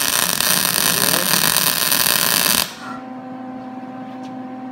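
MIG welding arc crackling steadily as a bead is laid on steel, cutting off suddenly a little under three seconds in; a steady electrical hum remains afterwards.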